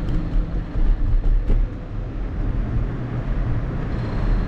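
Motor vehicle engine running close by, a steady low rumble with the hum of street traffic.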